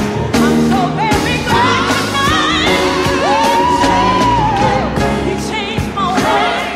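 Gospel song playing: a solo voice sings over the backing and holds one long note with vibrato in the middle.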